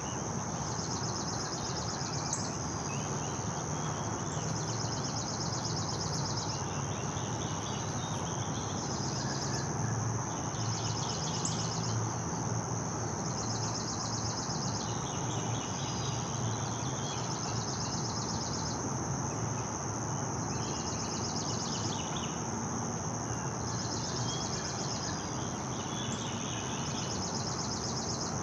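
Outdoor ambience of a steady, pulsing insect chorus, with short chirping phrases repeating every couple of seconds over a low steady rumble.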